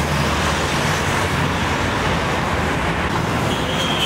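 Steady road traffic noise from cars and buses passing on the road.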